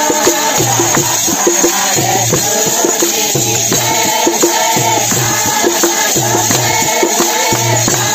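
A group of voices singing a Wagdi devotional song (bhajan) together, with a barrel drum (dholak) and small brass hand cymbals (manjira) keeping a fast, steady beat.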